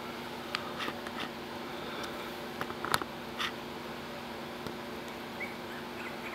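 Miniature pinscher puppies moving about in a plastic tub, giving a few short clicks, scratches and small squeaks, the sharpest about three seconds in, over a steady low hum.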